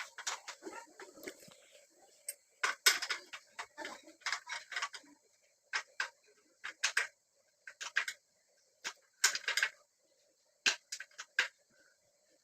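Irregular light metallic clinks and taps, like hand tools striking and handling metal parts, in short scattered strikes with pauses between them.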